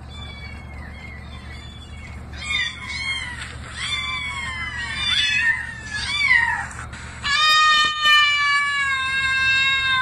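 A string of cat meows, each rising and falling in pitch, then one long drawn-out meow held for nearly three seconds near the end. A low vehicle hum runs underneath.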